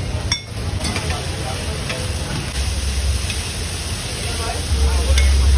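Food sizzling on a flat iron griddle, with a metal spatula ticking and scraping against the iron, over a steady low rumble that grows louder near the end.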